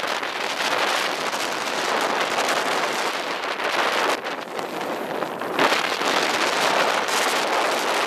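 Edges carving across groomed, hard-packed snow at speed: a rough hissing scrape that swells and eases with each turn, mixed with wind rushing over the microphone.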